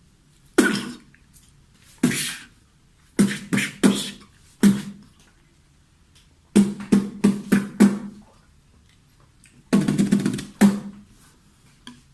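A man making percussive sound effects with his mouth in beatbox style: sharp hits, some single and some in quick runs of three to five, with short pauses between.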